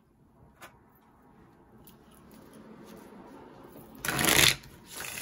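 A deck of oracle cards being shuffled by hand. A soft rubbing builds up over a couple of seconds, then a louder rush of card noise comes about four seconds in, and a shorter one near the end.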